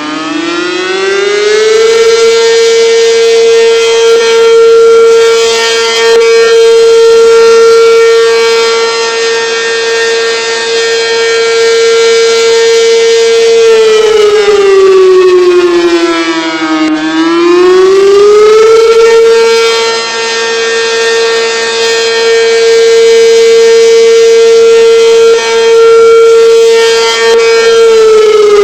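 ACA P-15 civil defense siren sounding, very loud: its tone winds up to a steady pitch over the first two seconds and holds for about twelve seconds. It then sags in pitch, climbs back by about nineteen seconds, holds again, and starts to wind down near the end.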